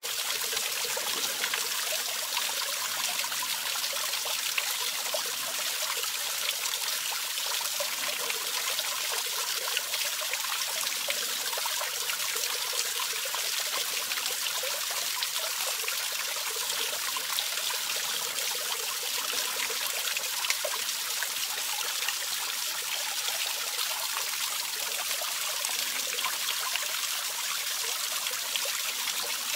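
Small waterfall: a thin stream of water pouring over a rock ledge and splashing into a shallow pool, a steady, bright hiss of falling water.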